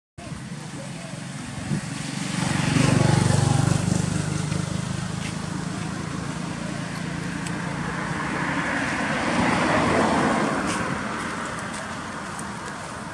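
Road traffic: a vehicle passes, swelling and fading about three seconds in, and a second one passes about ten seconds in.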